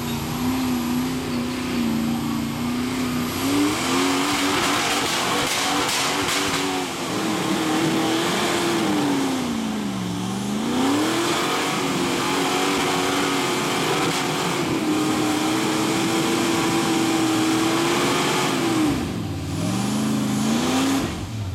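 Rock crawler's engine revved hard and held at high revs as it climbs a steep rock hill. The revs drop sharply about ten seconds in and again near the end, then climb back up.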